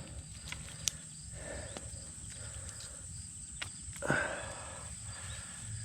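Insects keep up a steady high drone, with a few sharp pops and crackles from a campfire. A short sound sliding down in pitch comes about two-thirds of the way through and is the loudest moment.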